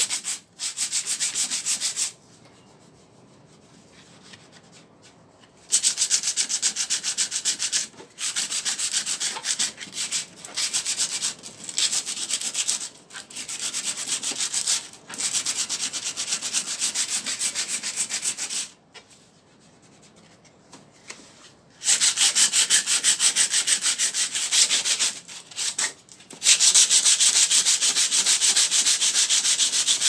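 Sandpaper rubbed by hand in quick back-and-forth strokes over the painted sheet-metal top of a refrigerator, scuffing the old finish before repainting. The strokes stop twice for about three seconds each.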